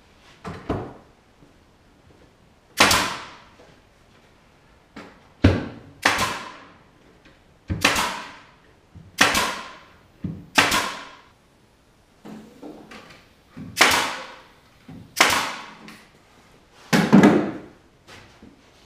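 About ten sharp single hits, spaced irregularly a second or two apart, each with a short ringing tail: nails being driven into a plywood cabinet carcass.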